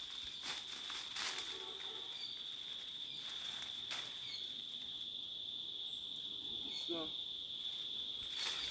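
Steady high-pitched insect drone, with several sharp cracks and rustles of dry brush and dead palm fronds being pushed through and broken.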